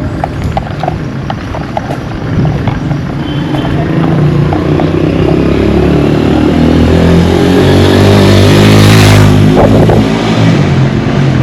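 A motor vehicle's engine approaching and driving past, getting steadily louder to its loudest about nine seconds in, then easing off as it goes by.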